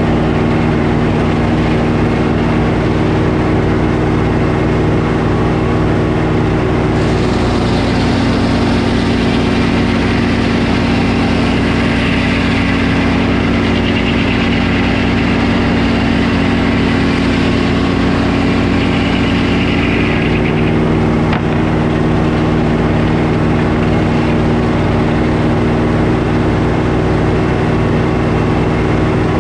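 Belt-driven Frick circular sawmill running with a steady low drone. From about seven seconds in to about twenty seconds the spinning blade cuts through a log, adding a higher-pitched whine and hiss. It then spins free again.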